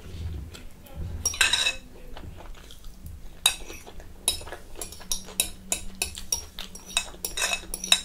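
Cutlery clinking and scraping against a plate of food in a run of short, irregular taps, with one longer scrape about one and a half seconds in.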